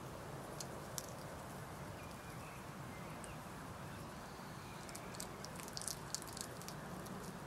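Hedgehogs foraging in grass: small sharp clicks and crackles over a steady low background hiss, one about a second in and a cluster of them between about five and six and a half seconds in.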